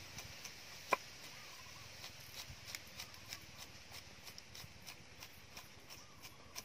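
A cleaver chopping garlic on a thick round wooden chopping block: a steady run of short knocks of the blade on the wood, about three a second, with one louder knock about a second in.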